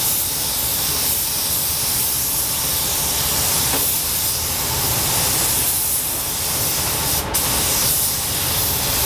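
Compressed-air gravity-feed paint spray gun hissing steadily as it sprays silver paint onto a car body panel, with one brief break about seven seconds in.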